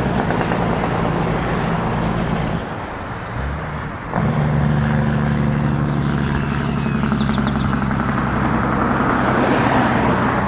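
Engine running steadily with a low hum, which dips for a moment about three seconds in and comes back abruptly about four seconds in.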